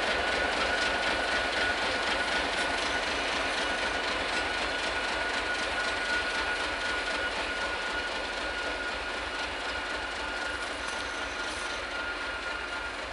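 SM48 (TEM2) diesel-electric shunting locomotive running under load as it hauls a train of open freight wagons at low speed, the engine's rumble topped by a steady high whine. The sound slowly fades.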